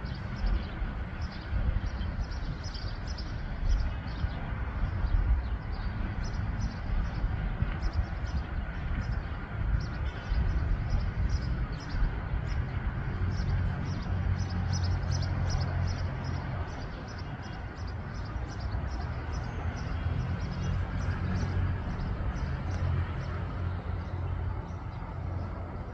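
Outdoor ambience: a steady low rumble throughout, with short high chirps repeating evenly a few times a second.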